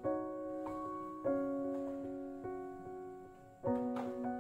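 Soft background piano music, slow held chords changing about every second or two, with a light knock near the end.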